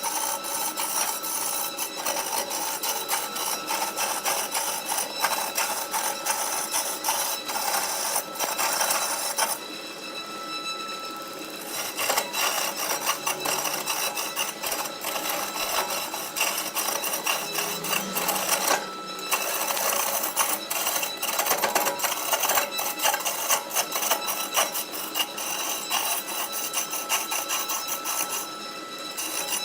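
Wood lathe running while a turning tool cuts and scrapes a spinning workpiece, with a faint steady whine and brief lulls when the tool comes off the wood about ten seconds in, about nineteen seconds in and near the end.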